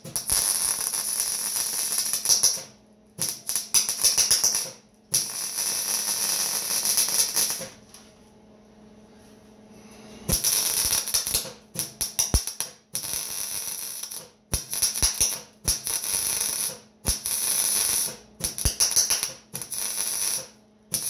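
Arc welding on a steel frame: the arc crackles and hisses in a string of short welds, starting and stopping about a dozen times, with a pause of a couple of seconds near the middle.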